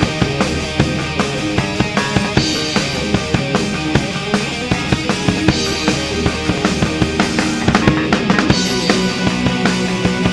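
Rock band playing live, an instrumental passage with no singing: a drum kit keeps a steady beat of kick and snare under electric bass guitar and other instruments.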